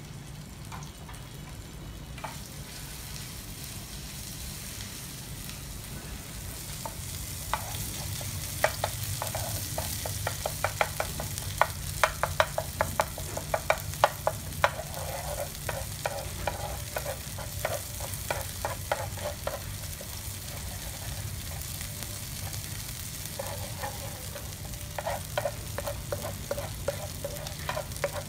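Red chili paste frying in oil in a nonstick pan. The sizzle builds over the first few seconds. From about eight seconds in, a wooden spoon scrapes and knocks against the pan in quick strokes, pauses for a few seconds past twenty, then starts again.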